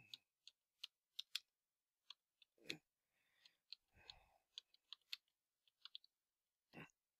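Faint computer keyboard keystrokes: irregular typing, about twenty separate taps with short pauses between bursts.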